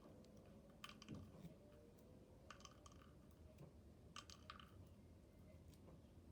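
Faint clicking and popping of slime with foam beads in it being kneaded and squeezed by hand, coming in small clusters every second or two.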